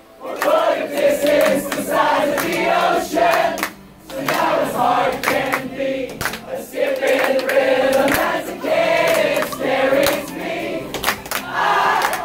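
Crowd singing along in unison, many voices together, with a short break about four seconds in.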